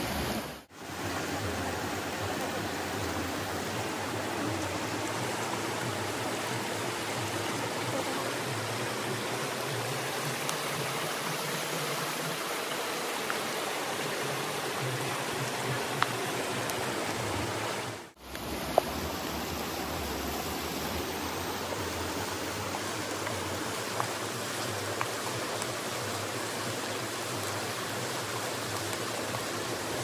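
Steady rush of a fast mountain stream flowing over rocks, with a few faint clicks from a wooden spatula stirring in the pan. The water noise dips away briefly twice.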